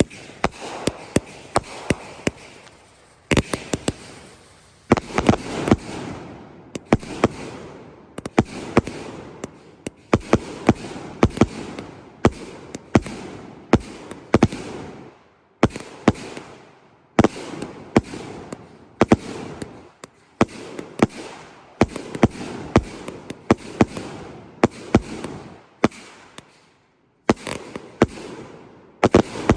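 200-gram consumer firework cakes on a cake board firing in quick succession: sharp launch and break reports, each followed by crackling, coming in volleys about every second or two.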